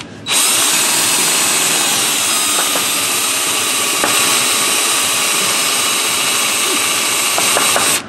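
Power drill running steadily under load as its bit cuts a pilot hole into the aluminum case of a Ford Edge power transfer unit (PTU). It starts just after the beginning and cuts off at the end.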